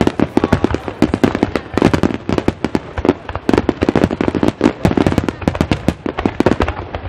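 Aerial firework shells bursting in a dense barrage, many bangs a second overlapping without a break.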